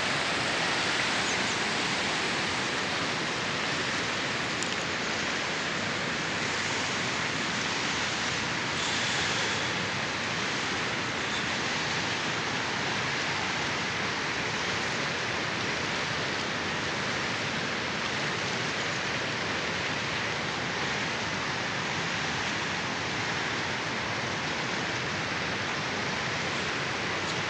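The Kunhar, a fast mountain river, rushing over rocks and boulders: a steady, unbroken sound of white water.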